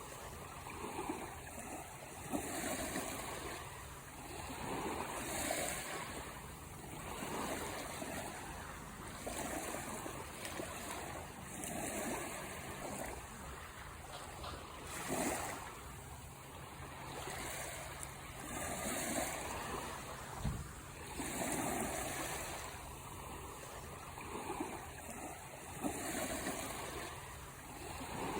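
Sea waves washing in and drawing back, each swell rising and fading every few seconds.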